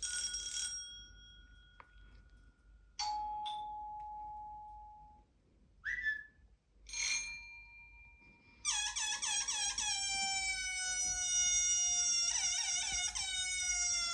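A sequence of played sound effects: three bell-like dings, each ringing out and dying away, then a short chirp. About two-thirds of the way in, a long wavering tone begins and runs on, slowly falling in pitch.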